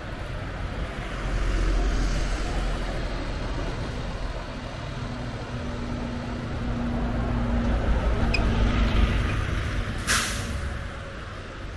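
Road traffic passing on a city street, with a bus engine's steady drone, and a sharp hiss of air brakes about ten seconds in.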